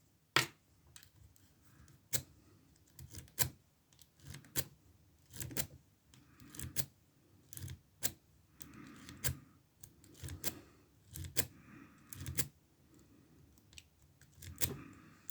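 Irregular small metal clicks and taps, about one or two a second, from a half-diamond lock pick working the pins of an older Ruko oval cylinder in a brass-and-steel padlock.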